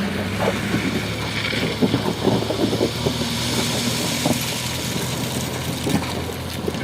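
Tata Hitachi excavator's diesel engine running steadily, with a run of knocks and clatters from the stone loading during the first four or so seconds.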